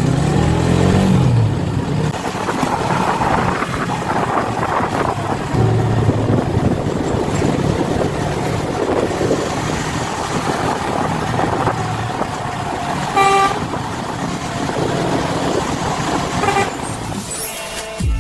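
Steady engine and road noise from traffic following buses on a highway, with a short horn toot about 13 seconds in. A rising whoosh comes just before the end.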